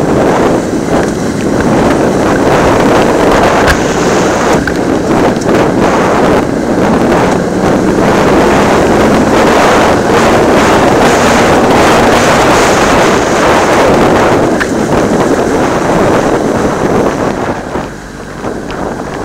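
Wind buffeting the camera microphone on a BMW F800GS ridden along a gravel track, a loud steady rush over the motorcycle's engine and tyres on the gravel. The noise eases briefly near the end.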